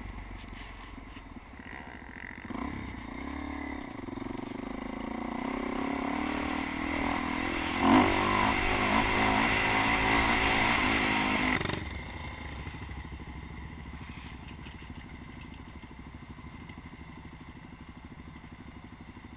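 Supermoto motorcycle engine pulling away and rising in pitch, getting louder as it runs hard, with one sharp knock about eight seconds in. Near twelve seconds the throttle is shut abruptly and the engine drops to a steady idle.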